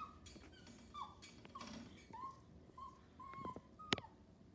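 A Chihuahua whining in short, high whines, about half a dozen, asking to be let into the next room. Two sharp clicks come near the end.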